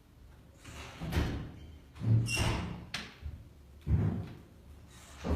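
Metal stove door being worked: a series of clunks and scrapes, with a brief high metallic squeak about two seconds in and a sharp click just before three seconds.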